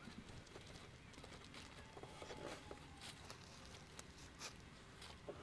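Near silence: faint outdoor ambience with a few soft, irregular steps of a horse's hooves and a person's boots walking on grass.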